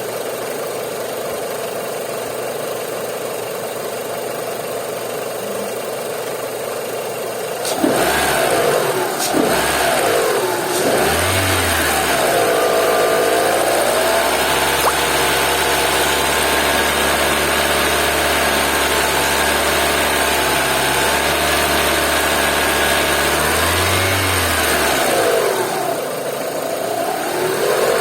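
Renault Mégane II engine idling, then blipped a few times about eight seconds in and held at a steady raised speed for about twelve seconds before dropping back to idle. The owner reports a foreign crackling noise from the engine at around 2000 rpm.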